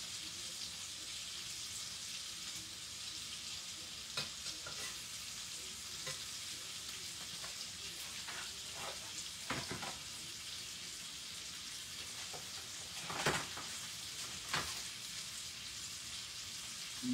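Steady sizzle of onions, bell peppers and chicken frying in a stainless steel pan, with a few short knocks and clinks of a metal spatula against cookware, the loudest about thirteen seconds in.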